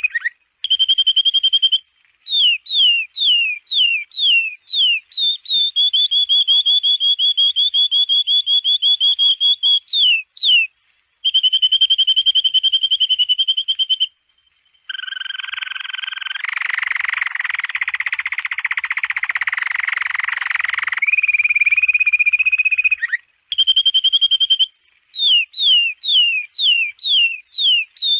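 Domestic canary singing: fast rolling trills of repeated notes, runs of quick downward-sweeping whistles, and a harsher buzzing phrase in the middle, with short pauses between phrases.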